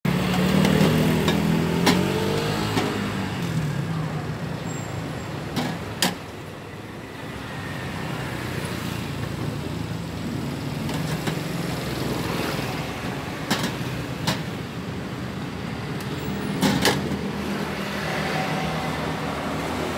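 Street traffic with vehicle engines running, loudest in the first few seconds. About seven sharp clinks, like metal pots and glasses being handled, come through it at scattered moments.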